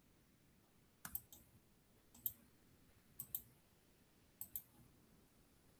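Computer mouse clicking: four short groups of two or three clicks, about a second apart.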